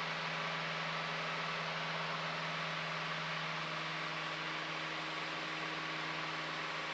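Piper Cherokee's engine and propeller at cruise power, heard as a steady drone inside the cabin.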